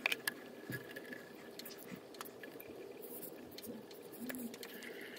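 Faint, irregular clicks and light knocks of a 28 mm socket on a ratchet handle being fitted onto a hot water cylinder's anode nut, over a faint steady hum.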